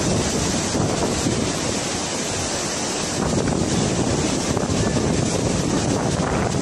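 Fast-flowing muddy floodwater rushing with a steady noise, with wind buffeting the microphone.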